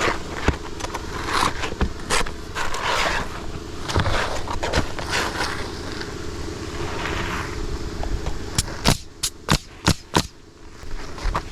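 Asphalt shingles scraping and rustling as they are slid into place, then a roofing nailer firing a quick run of about six nails near the end, with single shots earlier.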